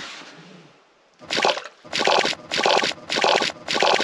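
A released cisco (lake herring) splashing in the water of an ice-fishing hole. There are five short splashes in a steady rhythm, a little over half a second apart, starting about a second in.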